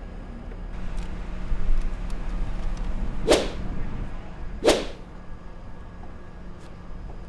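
Two sharp whip cracks about a second and a half apart, over a steady low rumble.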